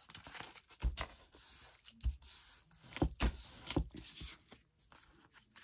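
Hands handling and pressing flat a glued, folded paper pocket made from an old book page on a cutting mat: paper rustling and scraping, with several light taps and knocks.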